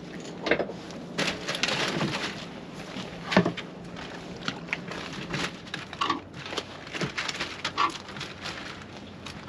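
Scattered clicks, knocks and rattles of fishing tackle and gear being handled aboard a small boat, with one louder knock about three and a half seconds in.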